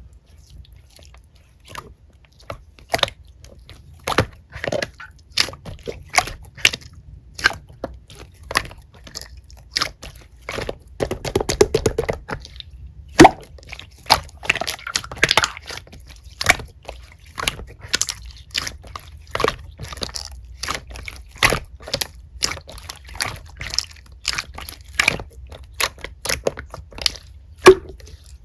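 Hands squishing and pressing a slime, giving a run of wet, sticky clicks and pops several times a second, with a denser squelching stretch about halfway through.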